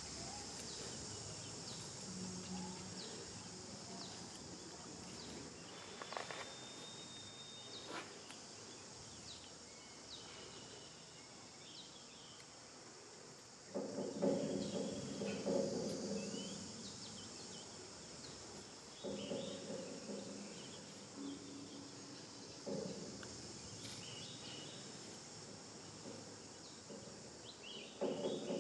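Steady outdoor insect chorus, a constant high buzzing drone, with a few short chirps. About halfway through and again several times toward the end, louder low pitched sounds lasting a second or two each cut in over it.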